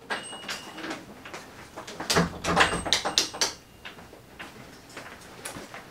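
A string of clicks and knocks from someone handling things and moving about in a small room, with a couple of brief thin high squeaks. The loudest cluster of knocks comes about two to three and a half seconds in.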